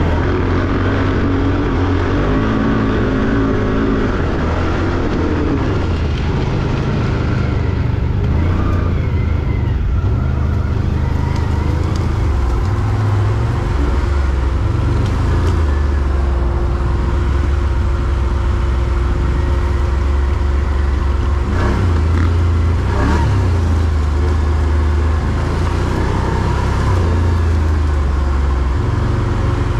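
Quad bike (ATV) engine running on a trail, its note rising and falling with the throttle.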